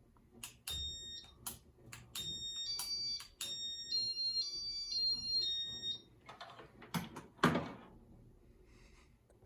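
Button clicks on a Casablanca W11 wall control, and the Casablanca Inteli-touch fan answering with a run of high electronic beeps that step between a few pitches as it goes into demo mode. A short noisy burst follows near the end.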